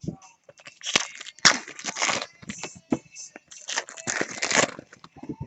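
Trading cards being handled and slid across one another: irregular rustling and scraping, with a few sharper clicks.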